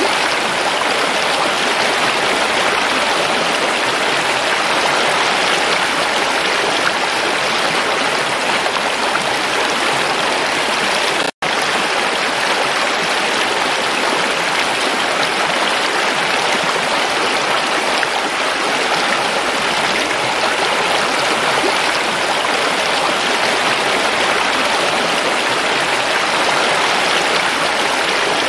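Shallow mountain stream rushing over rocks and small cascades: a steady, even rush of water, broken once by a split-second dropout about eleven seconds in.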